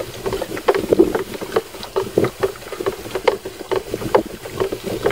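Liquid splashing and sloshing inside a knapsack sprayer tank as the water and herbicide mix is stirred with a hose, in quick irregular splashes several times a second.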